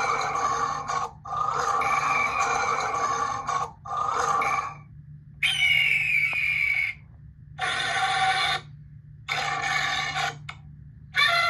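Electronic animal sound effects from Power Rangers cube zord toys: a string of about six short electronic roars and cries, each a second or two long, one after another with brief pauses, over a steady low hum.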